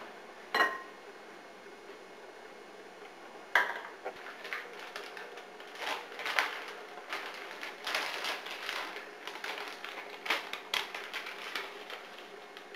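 Dishes and utensils clinking and scraping: a sharp ringing clink about half a second in, another a few seconds later, then a long run of quick clatters and scrapes.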